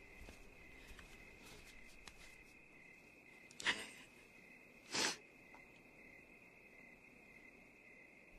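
Crickets chirping in a steady, high, pulsing drone. Two short, loud, breathy bursts come about a second apart, just past the middle.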